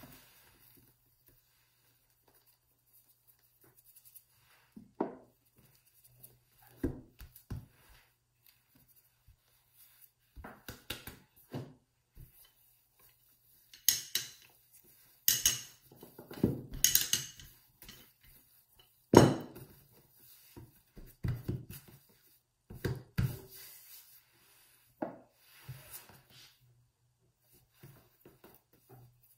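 Marble rolling pin rolling out shortcrust pastry on a floured countertop: irregular knocks and thumps of the pin against the dough and worktop, sparse at first, then thickest and loudest through the middle.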